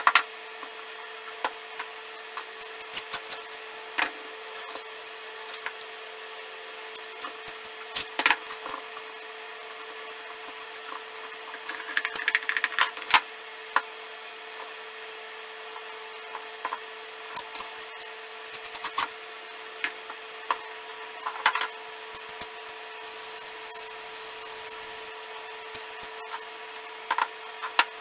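Hands and hand tools working waste material off a stave-built wenge and maple urn blank: scattered knocks and clicks against the wood and bench, with stretches of scraping and scrubbing from an abrasive pad. A steady hum runs underneath.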